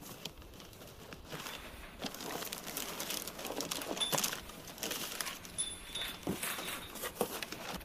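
Clear cellophane gift wrap crinkling and crackling as it is pulled off by hand, with a couple of brief high tinkles.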